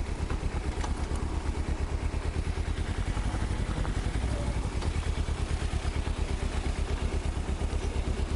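Kawasaki Versys-X 250's parallel-twin engine running steadily at low revs, a dense low pulsing that stays even throughout.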